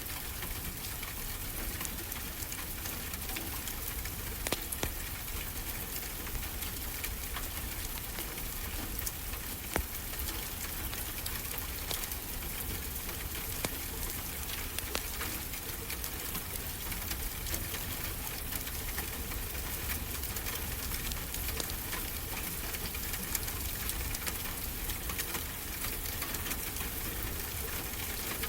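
Wood fire crackling with scattered small pops and a few louder snaps, over a steady wash of ocean surf.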